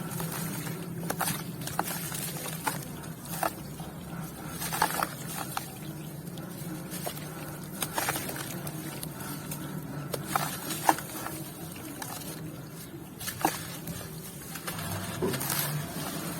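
Grainy white cement pieces being crumbled and crushed, giving irregular sharp crunches and crackles, with a faint steady low hum underneath.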